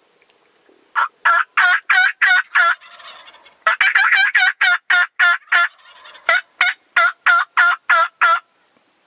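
Turkey yelping: about twenty loud, evenly spaced yelps at roughly three a second, in three runs with short breaks between them.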